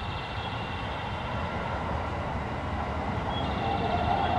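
Marine Liner electric train of 5000 series and 223 series 5000 subseries cars at a station platform, with a steady low rumble. A set of steady high tones is heard at the start, fades, and returns about three and a half seconds in.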